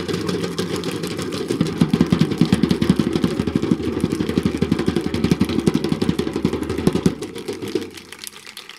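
Crowd clapping: a dense run of applause that dies away about seven seconds in.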